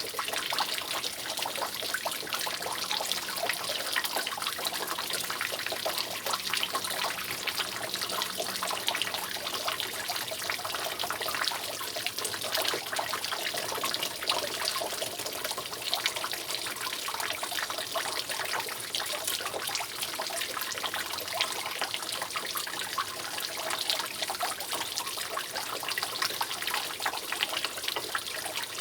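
Water steadily dripping and trickling from a leaking roof, a dense patter of many small drops falling without pause.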